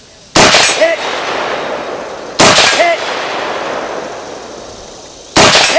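Three AR-15 rifle shots in 5.56 mm, two and three seconds apart. Each shot is loud and leaves a long echo. About half a second after each, a short ring comes back from the steel silhouette target being hit.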